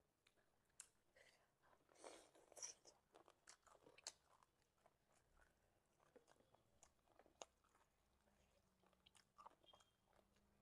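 Faint close-up chewing and biting: scattered wet mouth clicks and smacks, busiest with a crunchy stretch about two seconds in.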